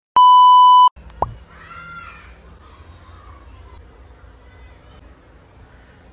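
A loud, steady 1 kHz test-tone beep, the tone that goes with TV colour bars, lasting under a second and cut off abruptly. A short blip gliding downward in pitch follows, then low room noise.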